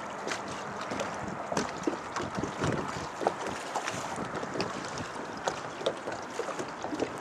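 Wind buffeting the microphone over choppy water slapping against an aluminium boat hull, with many short irregular knocks and splashes.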